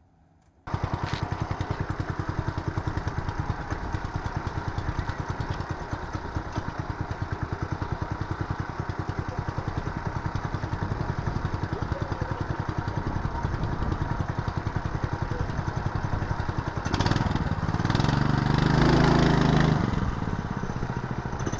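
Small engine running with a steady rapid firing beat, starting abruptly about half a second in, then revving louder in the last few seconds as it pulls away.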